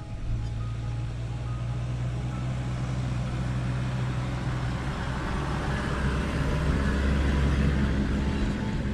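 Toyota Land Cruiser pickup towing an off-road camping trailer drives up a dirt track and past close by, its engine and tyre noise growing louder. It is loudest about seven seconds in, then eases as it goes by.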